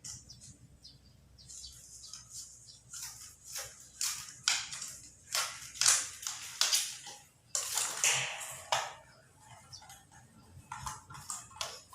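Plastic plumbing fittings being worked by hand: a run of irregular scraping and rubbing sounds as threads are screwed together, loudest between about three and nine seconds in.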